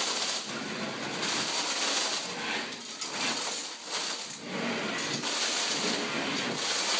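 Wide putty knife scraping water-soaked popcorn (stipple) texture off a drywall ceiling in repeated short strokes. The soaked texture comes away easily under the blade.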